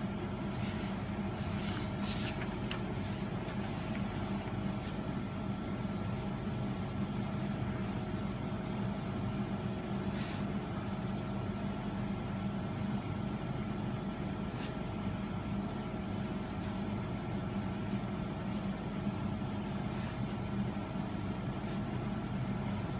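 An HB pencil writing on a lined notepad, with faint intermittent scratches of the graphite on paper over a steady background hum holding a low drone and a couple of faint tones.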